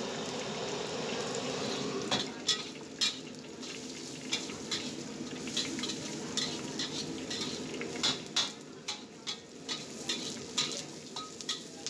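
Sliced shallots, garlic, galangal and bay leaves sizzling in a little hot oil in a steel wok. From about two seconds in, a metal wok spatula clinks and scrapes against the wok many times as they are stir-fried.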